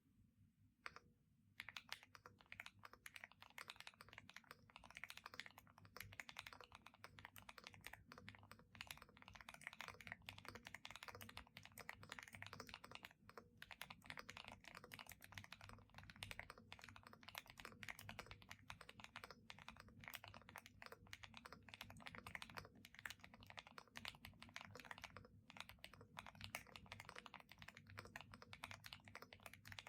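Continuous fast typing on a Stars-75 custom mechanical keyboard with an aluminum case, FR4 plate and foam-dampened case. The keystrokes are quiet and start about a second and a half in.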